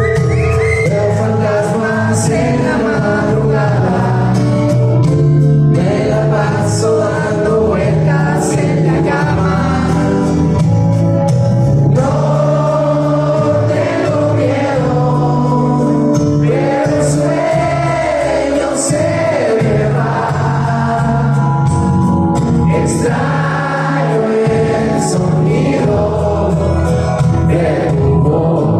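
Live band performance of a pop-rock song, with singing over the band.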